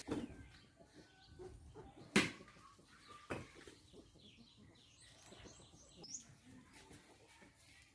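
Faint outdoor ambience with a run of short, high bird chirps about five to six seconds in. Scattered clicks and rustles run through it; the loudest is a sharp click a little over two seconds in.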